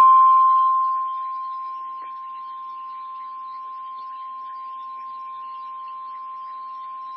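NOAA Weather Radio warning alarm tone, a single steady 1050 Hz tone, turned down over the first two seconds and then held at a steady level. It is the alert signal that a warning broadcast, here a severe thunderstorm warning, is about to follow.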